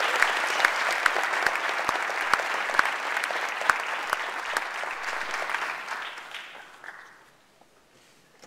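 Audience applauding, a dense patter with a few loud, sharp claps close by standing out; the applause dies away about seven seconds in.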